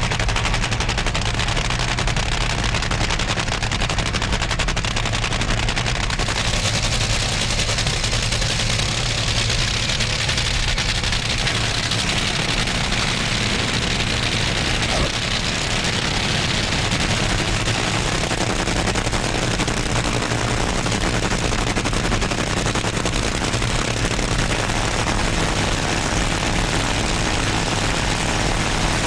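Two Top Fuel dragsters' supercharged nitromethane-burning V8 engines running in a side-by-side race, a loud, dense, rapid crackle. The run turns into a pedal fest: after the tires go up in smoke the throttle is pedalled, so the engine note cuts out and back in.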